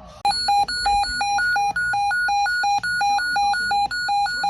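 Electronic alert tone: rapid beeping that alternates between a lower and a higher pitch, about three beeps a second, marking the start of a new weather alert.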